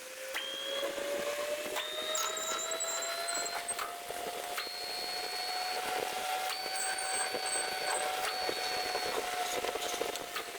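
Lathe re-chasing a thread: a steady machine whine that rises slightly at first, overlaid by a high-pitched squeal from the cutting tool that comes and goes in about five stretches of one to two seconds.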